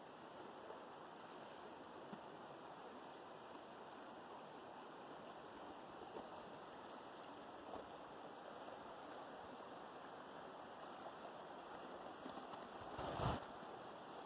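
River flowing steadily, a faint even rush of water, with a short louder burst of noise near the end.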